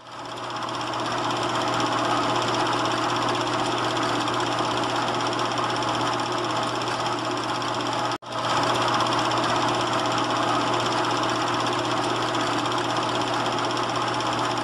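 Diesel locomotive engine running steadily at a low, even rumble with a droning hum, fading in at the start and broken by a brief cut about eight seconds in.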